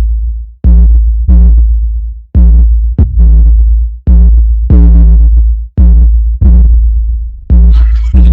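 Bass-boosted electronic trap music: heavy, distorted sub-bass hits with a pitched synth note on each, falling away between hits, and a busier hi-hat and percussion layer coming in near the end.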